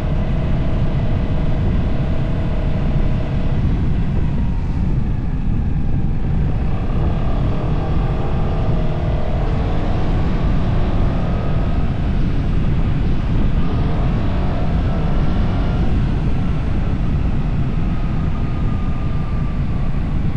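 Yamaha Tricity 300 three-wheeled scooter being ridden, its engine note rising and falling with the throttle over a steady low wind rumble on the handlebar-mounted camera's microphone.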